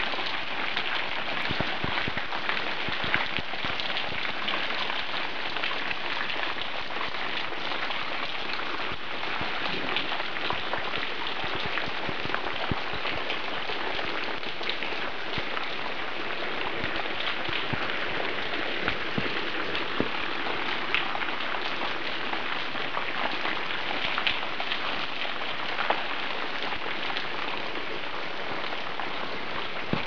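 Steady patter of falling water, with many small drips and a few louder ones scattered through it.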